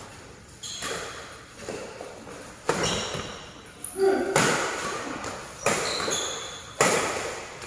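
Badminton rackets striking a shuttlecock in a doubles rally: about six sharp hits, roughly one a second, each ringing out in the hall's echo.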